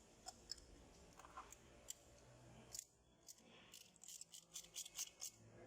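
Near silence broken by faint, irregular clicks and ticks of hand work on the engine while a new spark plug is fitted, with a quicker run of clicks near the end.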